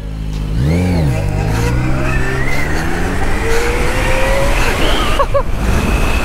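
Zero FXE electric motorcycle accelerating hard: its motor whine climbs steadily in pitch over rushing wind noise, with a brief engine rev rising and falling about a second in.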